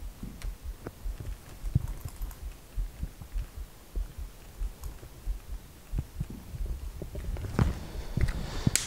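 Irregular soft low thuds and faint clicks from someone writing on a whiteboard with a marker and moving about.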